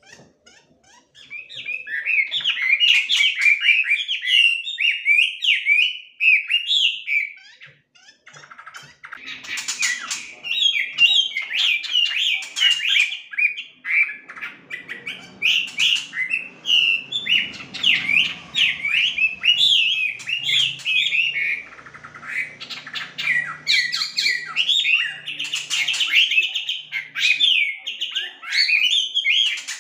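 Chinese hwamei (melodious laughingthrush) singing a long, rapid song of sweeping whistled notes, several a second, with short breaks about eight and fourteen seconds in.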